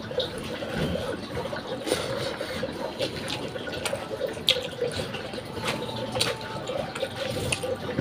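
Close-up wet chewing and lip-smacking of a mouthful of rice and fish, with many small irregular clicks of the mouth and tongue.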